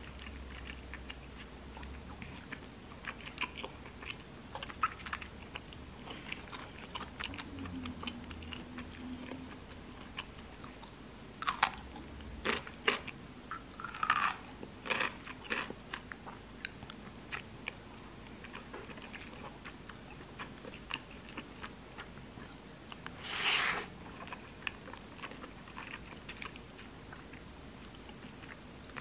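Close-up eating sounds: chewing of cream risotto, with a metal spoon and chopsticks clicking and scraping on a ceramic plate. The small clicks come irregularly, with a louder cluster about halfway through and another near the end.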